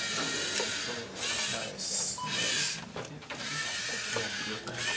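LEGO Mindstorms NXT robot's geared servo motors whirring in short bursts of about a second with brief pauses, as the robot drives and turns in small moves.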